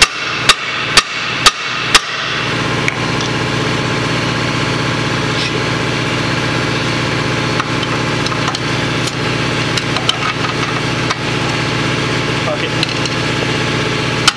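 Hammer blows on the car's front suspension knuckle at the coilover mount, about two a second, stopping after about two seconds. A steady machine hum runs underneath, with a few light metallic clicks.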